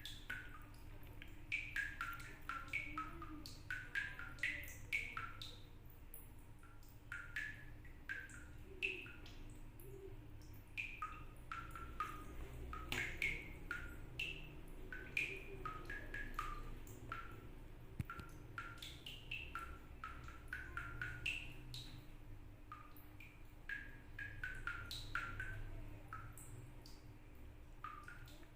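Water drops falling from a tap, each landing with a short pitched plink, a couple of drops a second in an irregular run of varying pitches that sounds almost like music.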